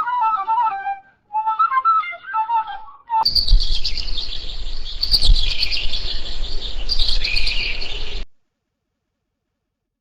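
Bird song: a warbling run of short notes from one bird, then an abrupt change to dense, higher-pitched chattering of birds over a low rumble, which stops suddenly about eight seconds in.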